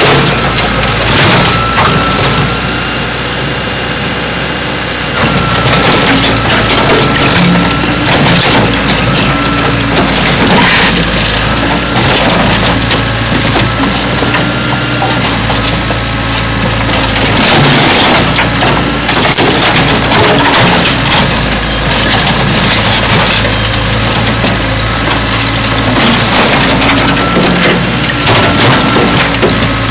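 A backhoe's diesel engine running steadily while its bucket crushes a car body, with repeated crunching and cracking of the car's panels and short squeals now and then.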